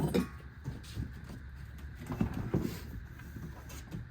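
Parts and packaging of a large boxed prop being handled: brief scraping and rustling noises, a short one at the start and a couple more about two seconds in.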